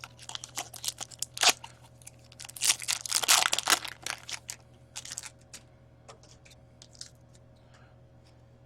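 Crinkling and tearing of trading-card pack wrappers and packaging being handled and opened. There is a brief burst of crackles at first and a louder, denser run of crinkling in the middle, then a few small clicks.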